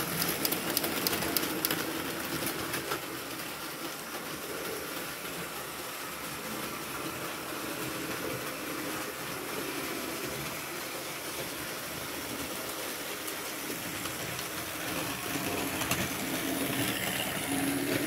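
Märklin model train with its V160 diesel locomotive running on the track: a rapid clatter of wheels over the rail joints and a motor hum, loudest in the first two seconds as it passes close, then fainter as it runs on around the layout, growing louder again near the end.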